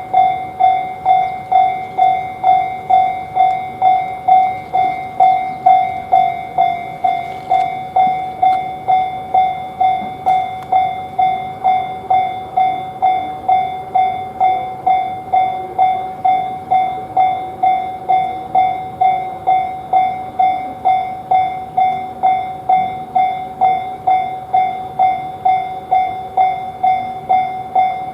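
Japanese railroad crossing warning bell ringing steadily, evenly repeated dings of one pitch at about two a second, with a train faintly audible underneath.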